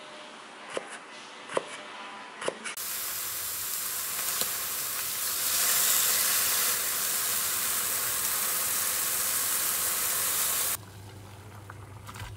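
A few knife chops through pickled radish on a cutting board, then about three seconds in, king oyster mushroom slices sizzling in a frying pan, a loud steady sizzle. Near the end it cuts suddenly to a quieter pot of boiling udon noodles with a low hum.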